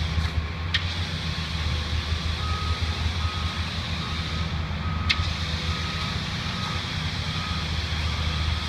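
Steady low rumble of heavy diesel plant, the concrete pumps and trucks running, with a reversing alarm beeping about once every 0.8 s from about two seconds in. Two sharp clicks stand out.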